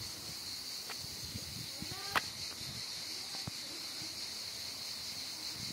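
Quiet outdoor background: a steady high-pitched hiss with a few faint clicks, and a brief faint voice about two seconds in.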